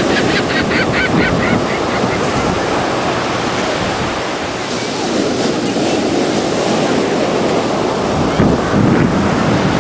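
Pacific ocean surf breaking and washing in with a steady, surging rush, with wind buffeting the microphone.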